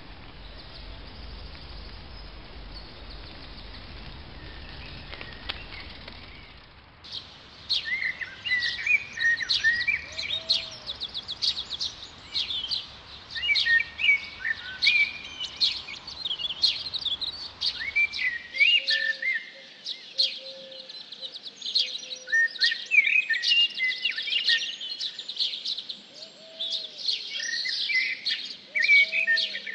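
Steady rushing noise of a bicycle ride along a forest path for about the first seven seconds. It then gives way to many wild birds singing busily, rapid high chirps and trills, with a few lower, softer calls in the second half.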